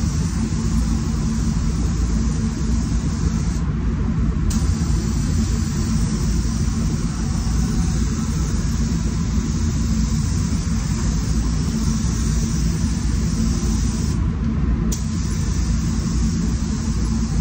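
HVLP spray gun hissing as it lays a drop coat at about 10 psi. The hiss stops briefly twice, about 4 s and 14 s in, as the trigger is let off between passes. A steady low rumble from the paint booth's air-handling fans runs beneath it.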